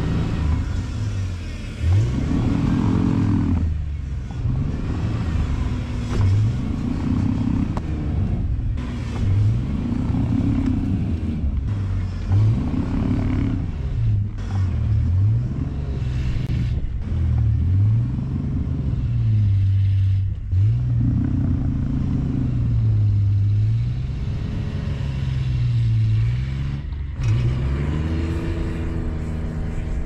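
1994 Ford Explorer's 4.0-litre V6 revving up and dropping back again and again, roughly every two seconds, as the stuck 4x4 works to drive out of a deep snowdrift. Near the end the revs climb and hold higher.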